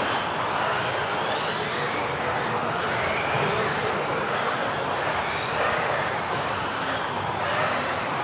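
Several modified-class electric RC off-road buggies racing together: high-pitched motor and gear whines that rise and fall over and over as the cars accelerate and brake, over a steady hiss of tyres on the floor.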